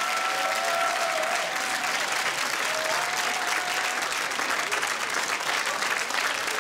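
Audience applauding steadily, with a few held high tones over the first four seconds.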